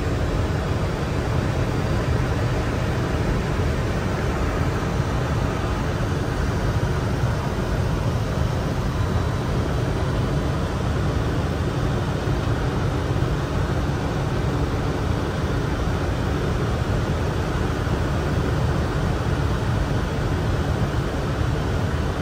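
Steady flight-deck noise of a Boeing 747-400 in flight on approach: an even, deep rush of airflow and air-conditioning.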